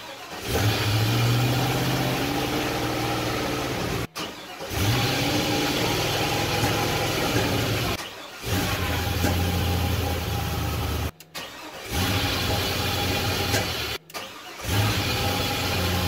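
LS-swapped 1969 Camaro's 5.3 L V8 starting and running in five short takes, each start made with the shifter in a different gear. The engine starts in every gear, not only in park and neutral: the neutral safety switch is not stopping it, which the owner puts down to wiring still to be done.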